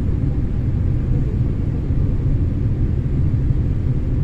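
Steady low rumble inside the passenger cabin of a Boeing 787-8 airliner in flight on its approach to landing: engine and airflow noise.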